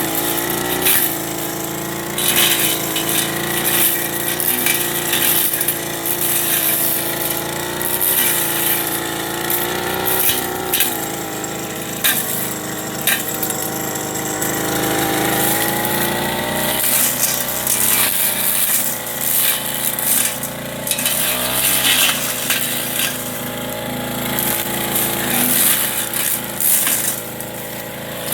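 Backpack brush cutter's small 30cc petrol engine running at high revs, its pitch wavering up and down as the blade cuts through weeds, with frequent sharp clicks and knocks as the blade strikes scattered debris.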